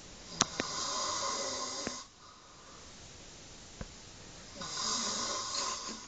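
A sleeping person snoring loudly: two long snores about four seconds apart, each lasting about a second and a half, with a couple of sharp clicks as the first one starts.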